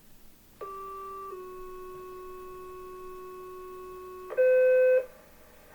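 County fire pager test tones, two-tone sequential paging: a short tone, then a longer, slightly lower one lasting about three seconds, sounding buzzy through a small speaker. A much louder, higher beep follows for about half a second near the end.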